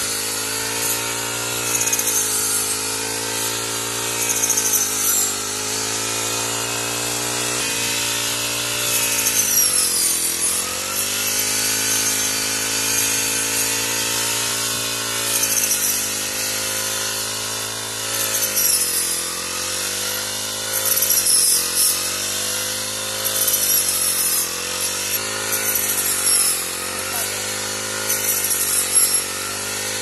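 Backpack brushcutter's small petrol engine running at high speed, its pitch dipping and recovering again and again as the blade with its rice-harvesting attachment bites into dry rice stalks. Short high swishes from the stalks being cut.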